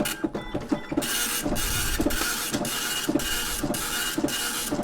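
Apple ImageWriter II dot matrix printer running its self-test. A few mechanical clicks come first, then from about a second in the print head buzzes steadily line after line, with a short break about twice a second.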